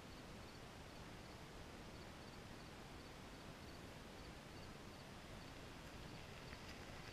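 Near silence: faint open-field background hiss with a faint high chirp repeating at intervals.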